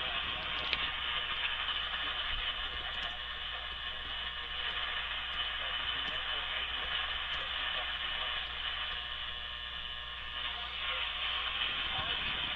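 Radio receiver tuned to a weak, iffy signal: a steady hiss of static with faint, indistinct audio beneath it.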